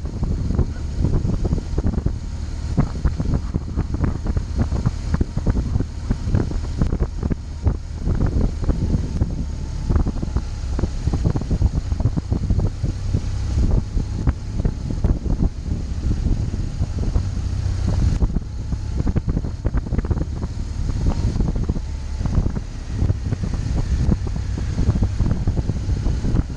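Wind buffeting a motorcycle-mounted microphone over the steady low running of the motorcycle's engine as it rides through traffic.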